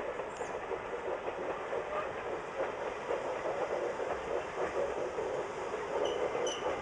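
Approaching diesel tourist train, its engine and wheels on the rails a steady, even rumble.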